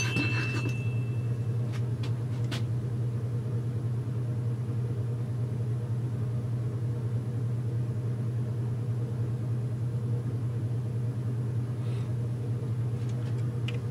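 Steady low mechanical hum from a machine running in the background, with a few light clicks of metal parts being handled.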